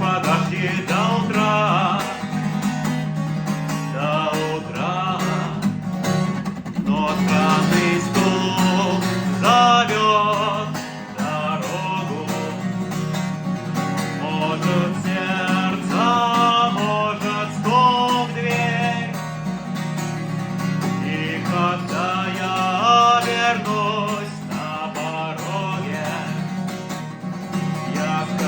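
Acoustic guitar strummed in a steady rhythm, playing the chords of a song with a melody line over them.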